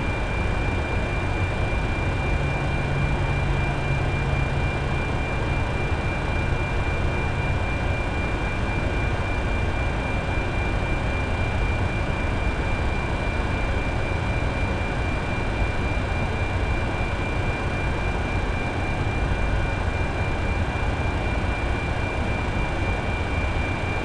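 Steady fan and equipment noise in the powered-up flight deck of a Boeing 747, the NASA Shuttle Carrier Aircraft: an even rush of air over a low hum, with a constant high whine.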